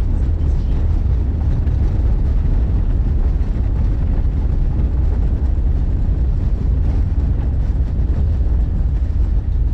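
Steady low rumble of a Volkswagen Kombi motorhome driving along a city road, heard from inside the cab: engine, tyre and wind noise with no pauses or changes.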